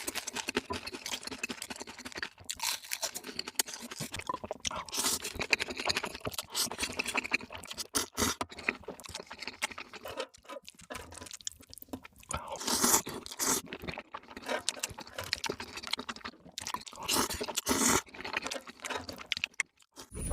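Close-miked mukbang eating sounds played back sped up: rapid, dense chewing and crunching.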